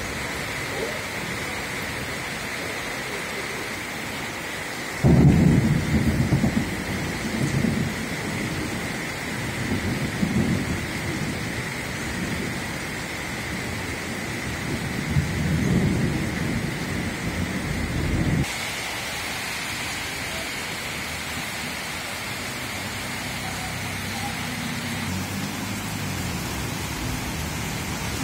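Heavy rain pouring steadily. From about five seconds in to about eighteen seconds, a loud, uneven low rumbling sits over the rain and then stops abruptly.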